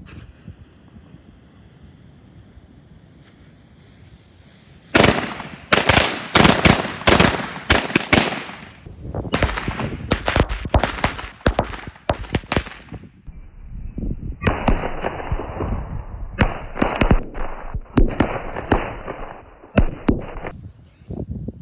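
A string of firecrackers going off in rapid, irregular cracks, starting about five seconds in. After a short lull, a second run of crackling follows and lasts until near the end.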